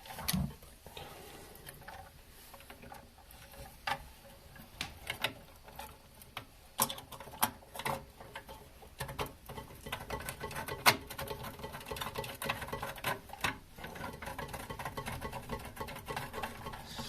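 Scattered small plastic clicks and scraping as the parts of a Siamp toilet fill valve and its rubber diaphragm washer are pushed back together by hand, with one sharper click about eleven seconds in.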